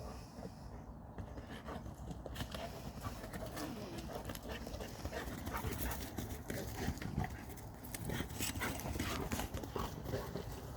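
Dogs panting and moving about, with scattered short clicks throughout.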